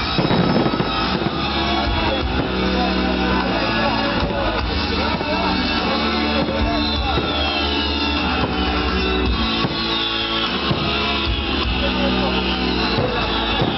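Rock music with electric guitar and drums, playing steadily.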